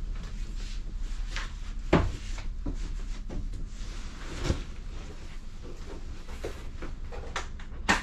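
Hinged fold-down bunk platform being lowered and pushed back up by hand: three sharp knocks, the loudest about two seconds in, another midway and one at the end, with smaller clicks and handling noise between.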